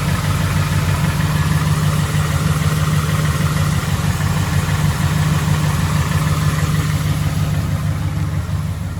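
2011 Ford F-150's 5.0-litre V8 engine running steadily, which the owner takes for an engine with rod knock.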